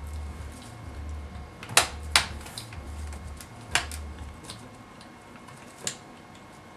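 Sharp plastic clicks and taps of laptop parts being handled during disassembly: two close together about two seconds in, another near four seconds and a last one near six. Under them a low hum pulses on and off, then stops a little past four seconds.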